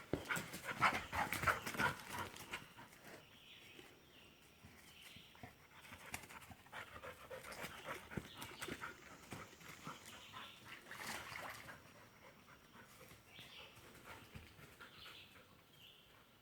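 Australian Shepherd panting in spells of quick, rough breaths, loudest in the first two seconds, with quieter spells later.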